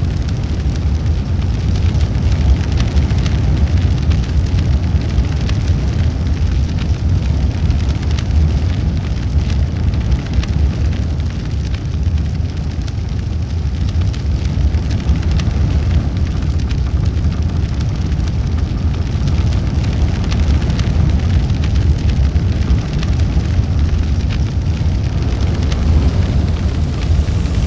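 Large fire burning with a steady low roar and dense crackling and snapping of burning wood throughout.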